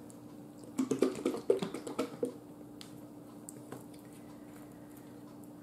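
Plastic bottle of ranch dressing being shaken: a quick run of knocks and sloshing clicks for about a second and a half, followed by a few light clicks of its plastic cap being handled.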